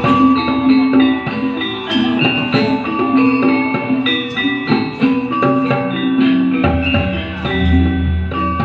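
Gamelan music: ringing metallophones and other mallet-struck percussion playing a busy melody. A deep low tone joins about seven seconds in.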